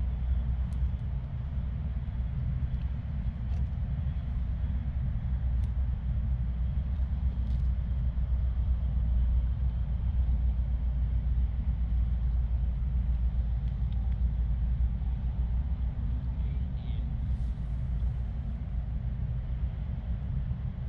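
Low, steady rumble of wind buffeting the microphone, fluttering without a break, with a few faint ticks over it.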